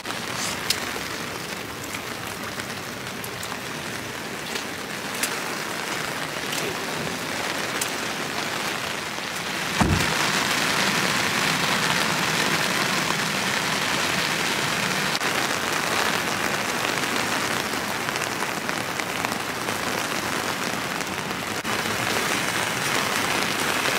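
Heavy rain falling, with sharp drop taps now and then in the first half. A single thump about ten seconds in, after which the rain is louder and more even.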